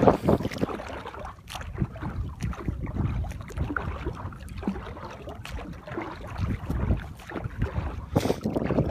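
Water sloshing and splashing against a small inflatable boat in choppy waves, with wind buffeting the microphone in uneven gusts.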